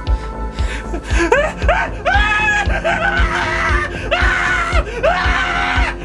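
Synth horror film score with a steady low pulsing beat. From about a second in, a wailing cry glides up and holds, repeating about once a second.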